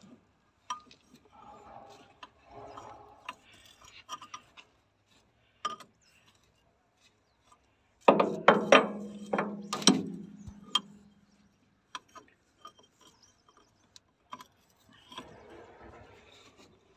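Hand tools clinking and knocking on the excavator's metal hydraulic fittings, scattered taps throughout, with a run of louder metal clanks about eight seconds in that ring on briefly.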